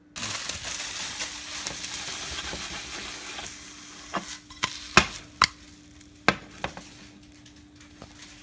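Juusto bread cheese frying in a nonstick skillet: a loud sizzle that eases after about three seconds, then several sharp pops and spits of hot fat.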